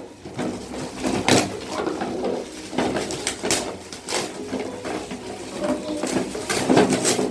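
Rustling and crinkling of gift packaging as metallic foil wrapping paper comes off and a cardboard toy box with a plastic window is handled, in irregular crackles and taps.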